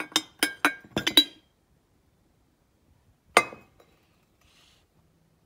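Ceramic teapot clinking as it is handled and tipped over: a quick run of about six light ringing clinks in the first second and a half, then one louder clink about three and a half seconds in.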